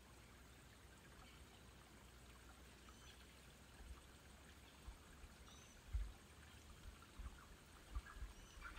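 Near silence: faint outdoor hiss, with a few faint high chirps and some soft low thumps in the second half.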